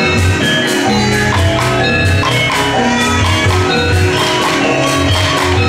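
Live traditional Sundanese ensemble music: a melody on tuned percussion over a steady, pulsing drum beat, with sharp percussive strokes throughout.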